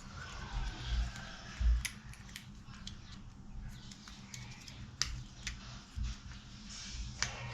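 Scattered sharp clicks and light rattles as a bike-lock mounting bracket and its strap are handled and fitted together.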